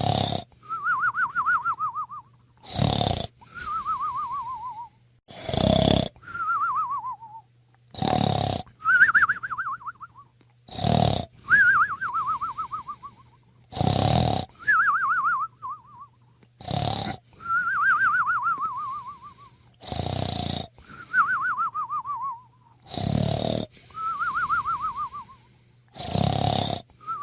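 A dog snoring in a steady rhythm, a breath about every three seconds: each one a short loud rasping snore followed by a high, fluttering whistle that slides down in pitch.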